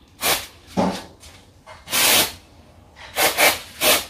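An aerosol rust-remover spray squirted in short hissing bursts onto rusted screws to loosen them. There are about six quick squirts, with a longer one about two seconds in.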